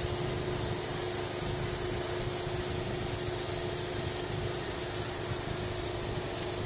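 Steady outdoor background: a constant high-pitched hiss over a steady low hum, unchanging throughout.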